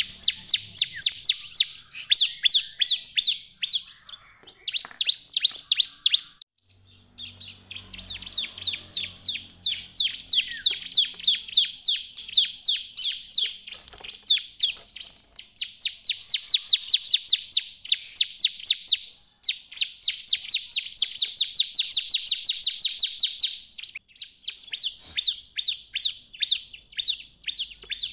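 Ciblek (a prinia) singing in full voice. Long runs of rapid, sharp, high chirps, many a second, are broken by a few short pauses.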